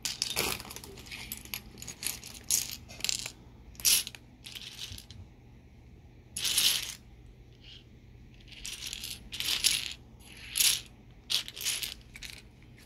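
Small plastic Lego pieces clicking and clattering against each other as they are handled and dropped, in a string of short, irregular clatters.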